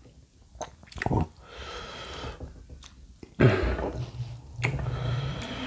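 Close-miked chewing and wet mouth sounds of someone eating rice cake in curry sauce, with a few light clicks of a metal spoon against a ceramic bowl in the first second or so as more curry is scooped. The chewing gets louder about three and a half seconds in.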